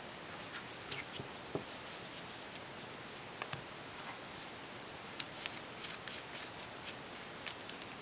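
Small clicks and taps of CR123 batteries and a flashlight battery magazine being handled as the batteries are loaded: a few scattered clicks, then a quick run of about a dozen sharp clicks in the second half.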